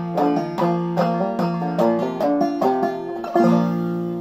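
Five-string banjo in double C tuning (gCGCD) played clawhammer style: a quick run of plucked melody notes, then a loud chord struck near the end that rings on, closing the tune.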